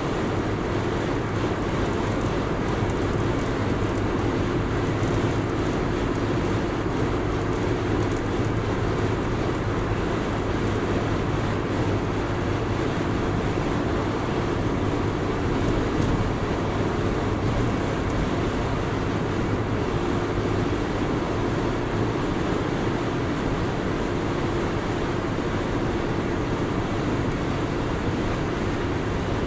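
Steady road noise of a car cruising on a highway: tyre roar and engine hum with a constant low drone, unchanging throughout.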